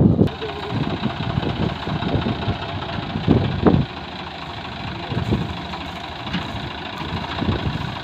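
Swaraj 855 FE tractor's three-cylinder diesel engine running steadily, briefly louder about three and a half seconds in, then settling to an even idle.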